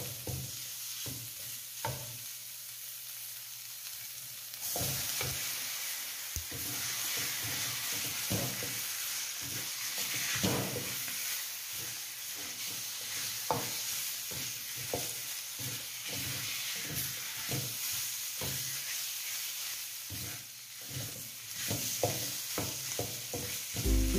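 Red curry paste, onion and chicken pieces sizzling in a stainless steel wok while a wooden spatula stirs and scrapes them around the pan, with frequent short scrapes and knocks. The sizzle grows louder about five seconds in.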